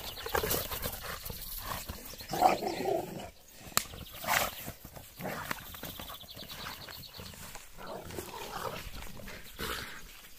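Two American bulldogs playing rough as they chase a thrown tire, with irregular bursts of dog noise and a few sharp knocks.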